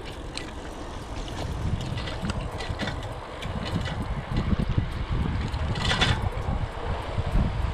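Wind buffeting the microphone of a handlebar-mounted camera on a moving bicycle: a gusty low rumble with scattered light clicks and rattles, and a brief hiss about six seconds in.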